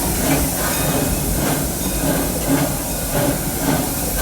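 Steam train on a park railroad running along the track, with a steady rumble of the cars and a hiss over it.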